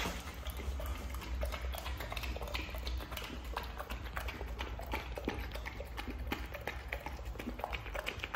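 A dog eating from a bowl: a quick, uneven run of small wet clicks, with a low steady rumble underneath.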